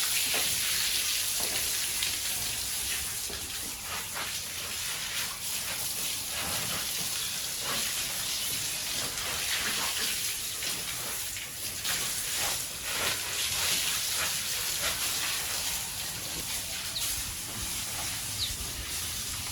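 Steady spray of water splashing onto a pig as she is washed down, with irregular splashes throughout.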